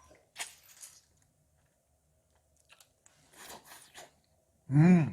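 Someone bites into and chews crispy roast chicken skin: a few short crunching bites. Near the end comes a brief loud vocal sound from the eater, rising then falling in pitch.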